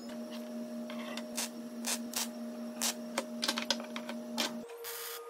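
Scattered sharp metallic clicks and taps of steel pieces and C-clamps being handled, over a steady hum whose pitch changes about four and a half seconds in.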